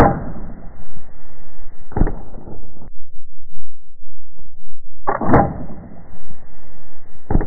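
A bow shot on a whitetail doe, replayed twice in slow motion. Each time the shot comes as a deep, drawn-out whoosh lasting about two seconds and ends in a sharp thud.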